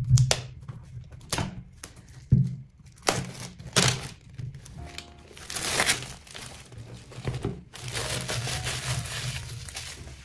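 Clear plastic shrink wrap crinkling and rustling as it is peeled off a spiral-bound marker pad, in two longer stretches in the second half. Before that, a few sharp knocks and taps from the cardboard packaging being handled. Background music underneath.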